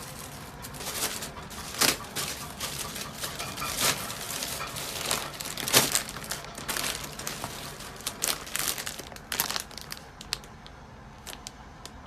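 Packaging crinkling and rustling in the hands, with irregular sharp crackles and tearing, as a delivered parcel is unwrapped.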